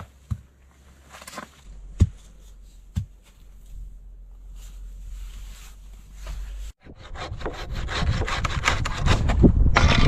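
Saw cutting through wood: a few scattered knocks, then about seven seconds in a steady run of rapid rasping strokes that grow louder.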